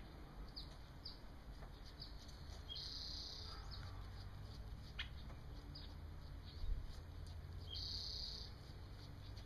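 Songbirds calling faintly, one of them twice giving a short note followed by a buzzy high trill under a second long, about five seconds apart, with other brief chirps between, over a low steady rumble.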